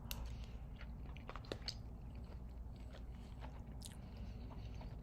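A person chewing a mouthful of microwave mac and cheese, with scattered small clicks.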